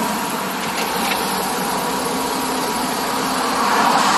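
Semi-truck engine idling with a steady running noise, a little louder near the end.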